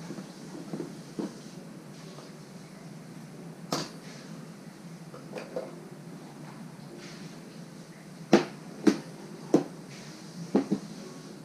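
Sharp knocks and clacks of hard objects being handled. A few lighter taps come first, then five loud ones follow close together over about two and a half seconds in the second half.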